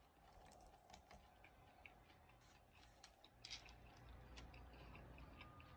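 Faint, scattered small clicks of someone eating close to the microphone: chewing and mouth sounds, a few per second.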